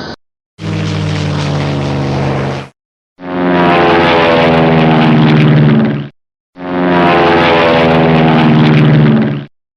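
Three short clips of a propeller airplane's engine running steadily, one after another. Each stops abruptly, with a brief silent gap before the next.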